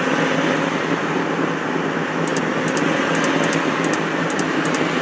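Steady vehicle noise of road traffic, an even engine-and-road rumble without any horn tune. From about two seconds in, faint high double ticks repeat a few times a second.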